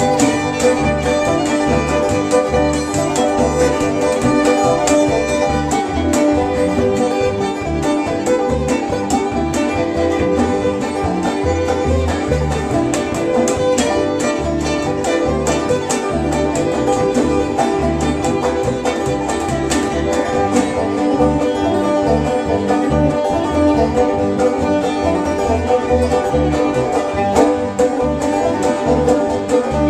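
Old-time string band playing a rag at dance tempo: fiddle lead over strummed guitar and a plucked upright bass keeping a steady beat.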